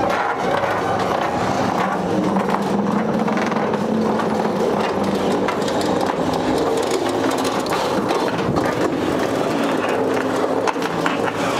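Steady rumbling rattle of a rolling vehicle and metal on metal, as the old truck is pushed and pulled along the steel deck of a car-hauler trailer.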